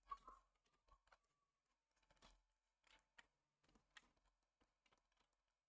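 Near silence: room tone with a few faint, scattered clicks, the first right at the start.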